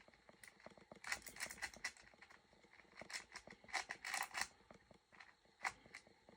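Plastic 4x4 speed cube being turned one-handed: quick clacking runs of layer turns in bursts, with short pauses between them.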